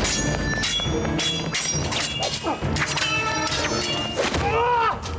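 Steel smallswords clashing in a rapid series of strikes, two or three a second, each with a short metallic ring, over orchestral music.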